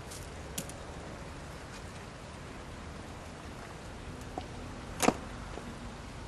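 A few light plastic clicks and one sharper knock about five seconds in as PVC irrigation pipes and fittings are handled and fitted together, over a steady background hiss.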